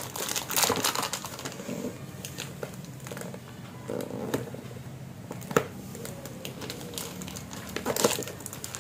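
Handling of camera packaging: a plastic wrapper crinkling and a small cardboard box being turned over and its end flap worked open, with scattered light clicks and taps and one sharper tap about halfway through.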